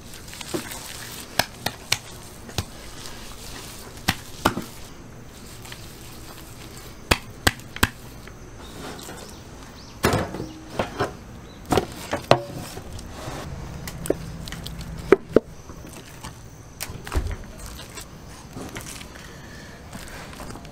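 Raw steaks and their bones being handled on a stainless steel table and in a steel pan: scattered sharp knocks and taps at irregular intervals, with a quick bunch of them about halfway through.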